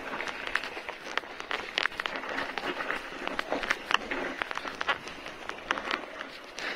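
Mountain bike tyres rolling fast over dry fallen leaves and loose gravel on a dirt trail, a steady crackle broken by many irregular sharp clicks and rattles.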